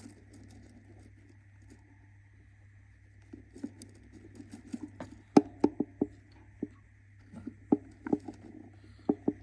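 Budgie moving about in its nest box: soft scratching and shuffling, then a string of sharp taps from about halfway through.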